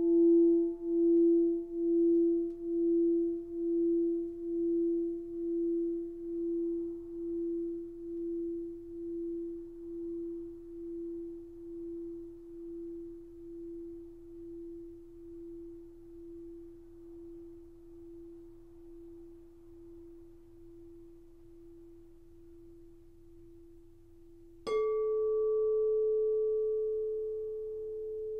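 A pressed quartz crystal singing bowl rings on in a pure tone that pulses about once a second as it slowly fades. About 25 seconds in, a second, higher-pitched crystal bowl is struck and rings out loudly.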